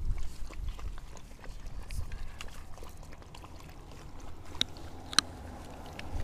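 Several puppies lapping water from a clear plastic container: a run of small wet clicks, with two sharper clicks near the end.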